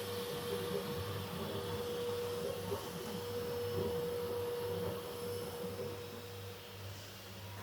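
A steady, even hum with one clear held tone over faint background noise.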